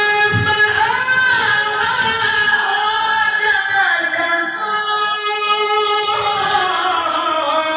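A man's voice in melodic Quran recitation (tilawah), holding long, high, ornamented notes. The pitch waves and bends through the phrase and settles lower near the end.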